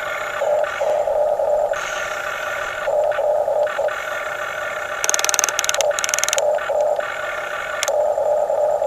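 Small electric gear motors of radio-controlled construction models whining in short starts and stops, each run at a steady pitch. About five seconds in comes a stretch of rapid rattling clicks, with another brief click near the end.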